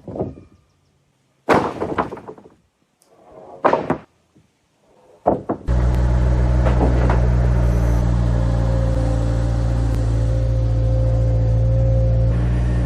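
Heavy wooden thuds, four of them a second or so apart, as pine beams are set down on a stack; then a steady engine hum cuts in suddenly and runs on evenly.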